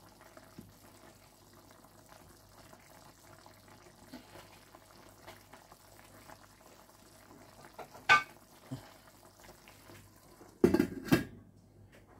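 Curry chicken bubbling faintly as it simmers in an electric skillet. A sharp clink comes about eight seconds in, then near the end the glass lid with its steel rim clatters down onto the pot in a few quick knocks.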